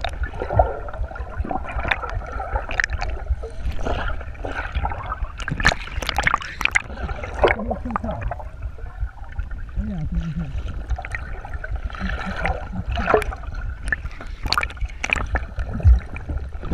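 Water sloshing and gurgling around a Laser 2000 dinghy, with frequent irregular sharp splashes over a steady low rumble.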